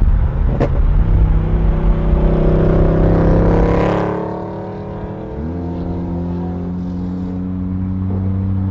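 A Holden Commodore ute's engine and exhaust accelerating past, its note climbing and then dropping away as it goes by about four seconds in. After that comes a steady engine drone from inside a car at highway speed, which steps up once in pitch about halfway through.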